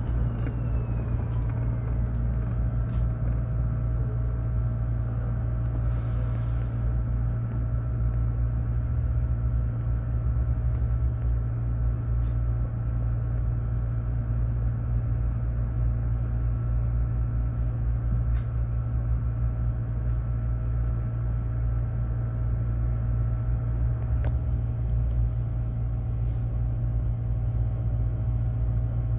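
Mercedes-Benz eCitaro battery-electric city bus running, a steady low rumble with a faint steady whine over it. A whine falls in pitch over the first couple of seconds, and a few light clicks come through.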